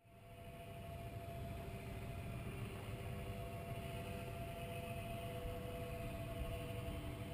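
Distant electric motor and propeller of a radio-controlled Magnus-effect aircraft in flight, giving a steady drone over a low rumble. The sound fades in from silence in the first second.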